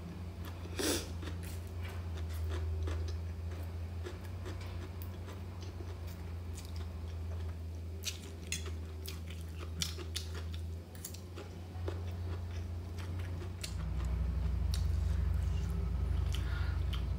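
A mouthful of veg chowmein noodles slurped in about a second in, then close-up chewing with many small wet clicks and smacks. A steady low hum runs underneath and grows louder near the end.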